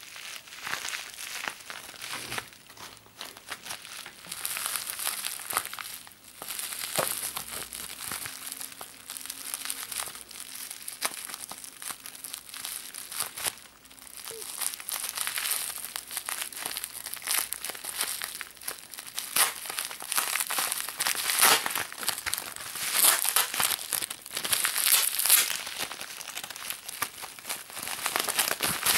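Plastic bubble wrap crinkling and rustling as it is handled and unwrapped by hand, in irregular crackles that grow louder in the second half.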